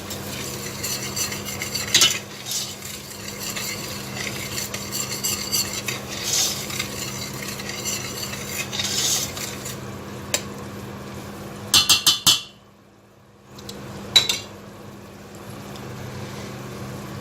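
A spoon stirring and scraping a frying onion, tomato and garlic masala in a pan, with a sizzle underneath; a few quick clinks of the spoon on the pan come about twelve seconds in, and a single knock a little after.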